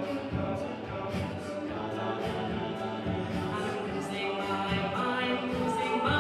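A cappella group singing in layered harmony, with a steady ticking beat of vocal percussion; the voices swell louder near the end.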